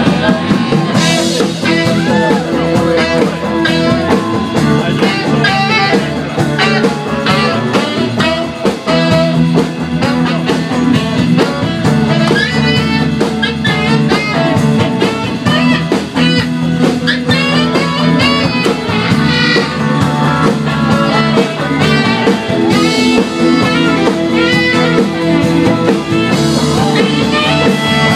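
Live band playing an instrumental stretch, electric guitar and drum kit to the fore, with quick melodic runs over a steady bass line.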